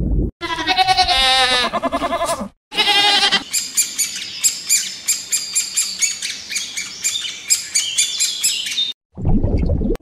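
A sheep bleats twice in a wavering, quavering voice. Then birds chirp in quick repeated high notes for several seconds. A low rushing, watery noise comes in just before the end.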